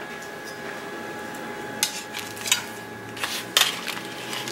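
A metal baking pan holding a foil-wrapped fish packet being handled with a cloth: a few short clinks and knocks, the first about two seconds in and a small cluster near the end, over a faint steady hum.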